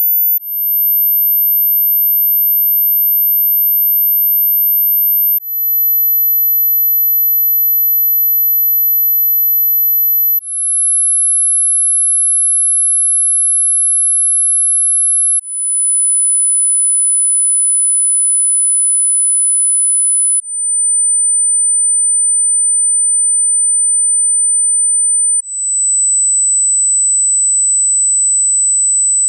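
Hearing-test pure sine tones, one high steady tone at a time, stepping down in pitch about every five seconds from around 13 kHz to around 8 kHz, each new tone fading in briefly.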